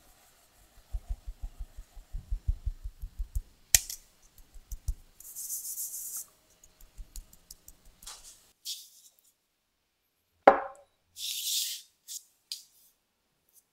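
A fine-mesh metal sieve full of potato starch being patted by hand over a bowl: a quick run of soft, low thuds for about four seconds, with short hissy rustles of powder shaking through the mesh. A single sharp knock with a brief ring comes about ten seconds in.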